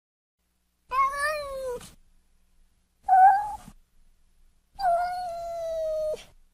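Kitten meowing three times, the first call rising and falling in pitch, the second short, the third long and held steady before cutting off.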